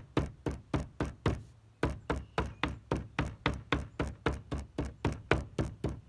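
Rubber mallet pounding paper laid over flowers on a wooden table, hammering the petals to print their colour: a steady run of dull strikes at about four a second, with a short break about a second and a half in.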